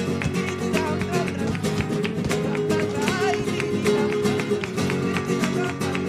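Flamenco music on acoustic guitar: fast plucked notes with frequent sharp percussive strokes.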